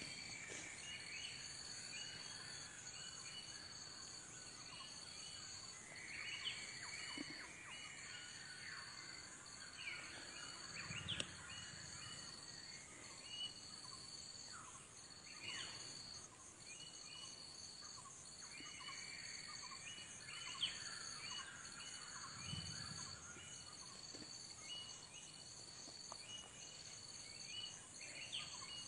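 Forest ambience: a steady, high insect drone that breaks off briefly just over once a second, with scattered bird chirps over it. Two dull bumps, about 11 and 22 seconds in.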